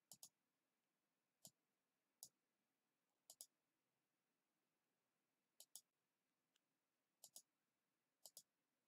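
Faint computer mouse button clicks: about eight short, sharp clicks, most of them in quick pairs, at irregular intervals.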